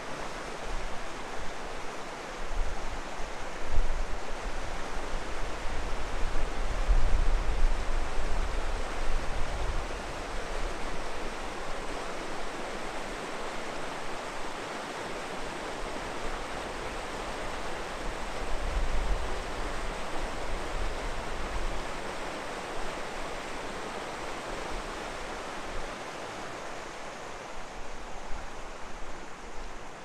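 Fast-flowing rocky stream rushing over stones in white water, a steady rush. Low wind buffeting on the microphone comes a few seconds in and again past the middle.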